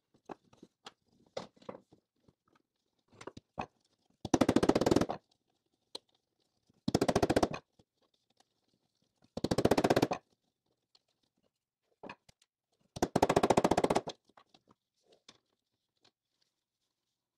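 Four short bursts of rapid tapping on a steel-and-stainless window channel while it is being straightened, each burst lasting about a second. Faint clicks and handling noise fall between the bursts.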